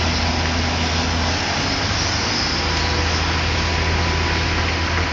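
Steady mechanical drone with a strong low hum and a thin steady tone above it: the running of machinery at a busy construction site.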